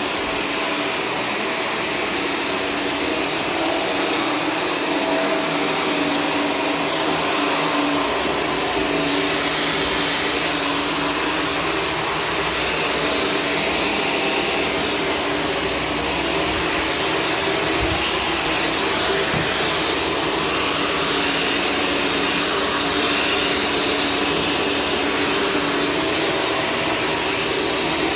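Shark Stratos vacuum cleaner with a self-cleaning brush roll running steadily: an even rushing noise with a few held humming tones.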